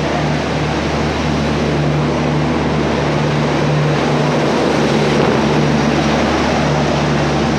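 Steady drone of a train at close range, with an even low hum underneath and no breaks or clicks.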